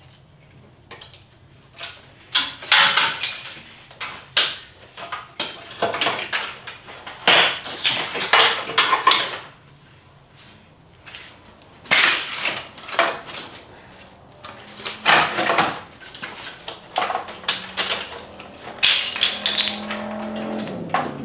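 Clattering, knocking and rattling of car parts and hand tools being handled during a teardown, in several bursts with short quiet gaps between.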